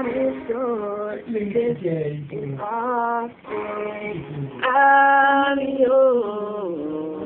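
A young male voice singing over an acoustic guitar. About two-thirds of the way through he holds one long note, then glides down. The sound is thin, with no highs, as from a webcam recording.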